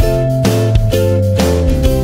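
Background music with a strummed guitar.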